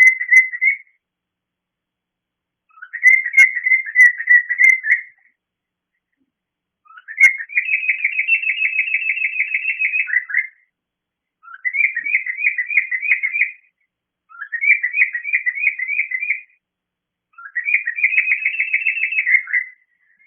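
Cockatiel whistling: a run of loud, warbling whistled phrases, each lasting one to three seconds, with short pauses between them. Its owner takes the calling as attention-seeking.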